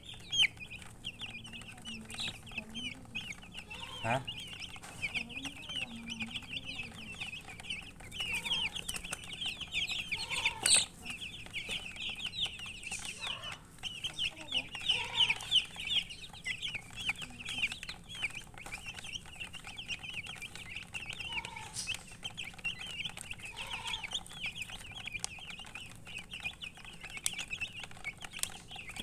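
A flock of baby chicks peeping nonstop: many short, high cheeps overlapping in a steady chatter.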